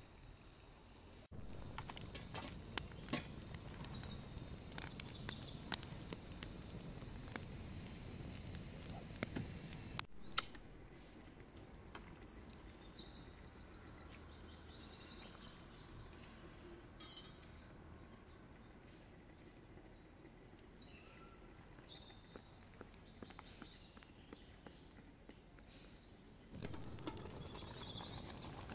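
Faint outdoor ambience with small birds chirping now and then and scattered light clicks and taps. Near the end a louder steady rushing noise comes in.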